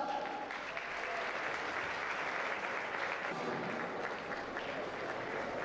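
Audience applauding steadily, dense clapping from many hands.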